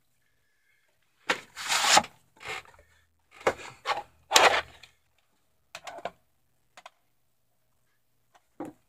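Cardboard VHS sleeve and plastic video cassettes being handled: several short bursts of scraping, rustling and clicking at uneven intervals, loudest about one and a half seconds in and again near the middle.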